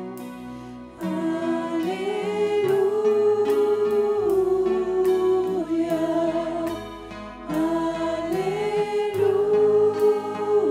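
A worship team of several women singing a Christian worship song together in long held notes over instrumental backing. The voices come in strongly about a second in, ease off briefly about two-thirds of the way through, then swell again.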